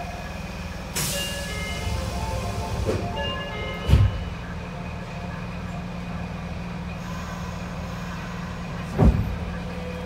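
Nagoya Subway 5050 series car standing at a station with its doors shut: a steady low hum from the car's equipment, a hiss that starts about a second in, and two dull thumps, about four and nine seconds in.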